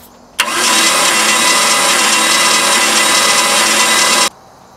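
Chevy 305 V8 marine engine cranked over on its starter motor for a compression test, with the gauge on a cylinder that then reads only about 30 psi. The cranking starts abruptly about half a second in, runs steadily for about four seconds and cuts off suddenly.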